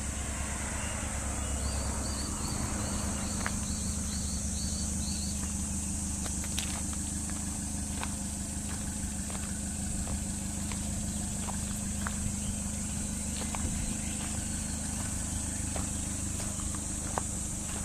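Subaru Dias Wagon's small supercharged engine idling steadily, with a steady high hiss and a few light clicks over it.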